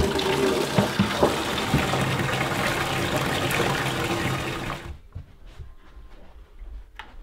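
Bathtub faucet running water into a plastic bucket, filling it with a steady rush; the water stops about five seconds in.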